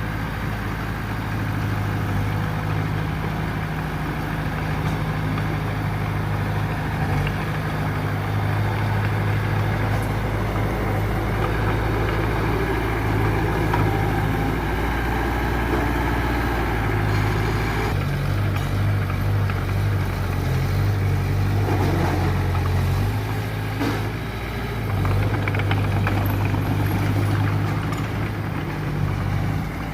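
Mitsubishi BD2F bulldozer's diesel engine running steadily as the machine works soil, its note shifting a few times as the load changes.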